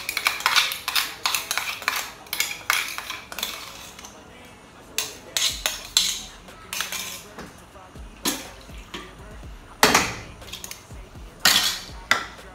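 Metal spoon clinking and scraping against a small bowl while scooping pepper and onion blend into a cooking pot. There is a quick run of clinks in the first few seconds, then single knocks about a second apart.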